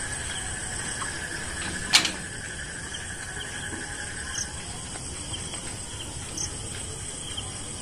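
Steady high-pitched chirring of night insects such as crickets, with one sharp click about two seconds in and a few faint ticks later.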